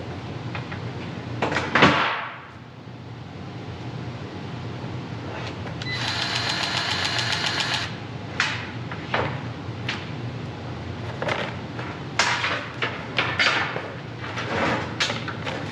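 Repair work on a disk harrow: metal parts knocking and clanking over a steady low machine hum, with a loud knock just under two seconds in. About six seconds in, a power tool runs in a rapid, rattling burst for about two seconds.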